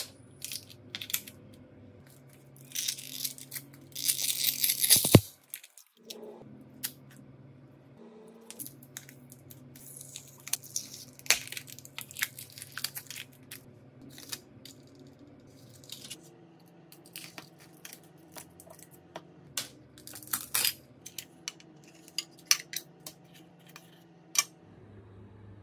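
Small clicks, taps and scrapes of tools and parts being handled on a smartphone under repair, with a loud hiss lasting about a second, some four seconds in.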